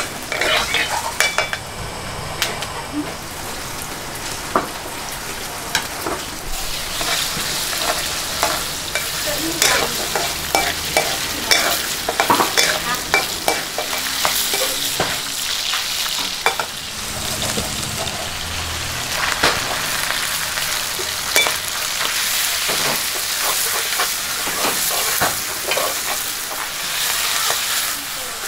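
Chicken frying in oil in a steel wok, a steady sizzle, with a metal wok spatula repeatedly scraping and clanking against the pan as it is stir-fried.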